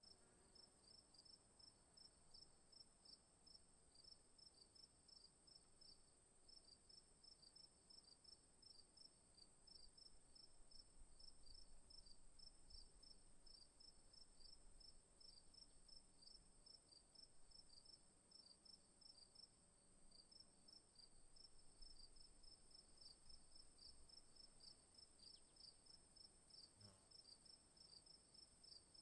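Crickets chirping faintly: a steady high-pitched trill that holds unbroken, with a rapid rhythmic chirping of about four chirps a second running on beneath it.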